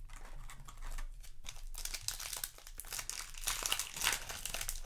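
Yu-Gi-Oh! booster-pack foil wrapping and cards being handled, crinkling with irregular crackles.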